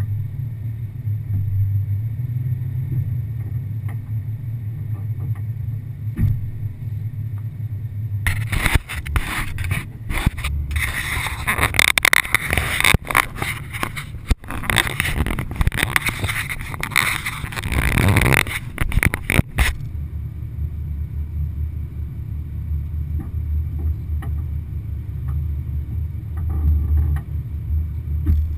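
Off-road vehicle engine idling as a steady low rumble. From about 8 to 20 seconds in, loud irregular rubbing and knocking from the hood-mounted camera being handled and turned covers it.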